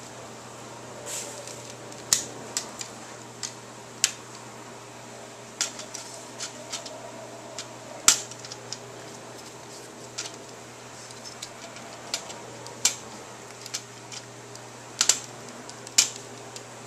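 Plastic pieces of a Nano Habitat raceway toy set clicking and clacking as they are handled and snapped together on the floor: irregular sharp clicks, a few much louder than the rest.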